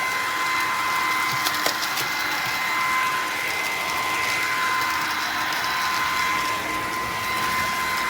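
Bissell PowerClean FurFinder cordless stick vacuum running with a steady high motor whine over a rushing of air. A few short clicks come through about a second and a half in.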